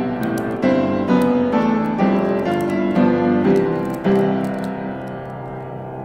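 Background piano music: notes struck about twice a second, with a last chord about four seconds in that rings and fades away.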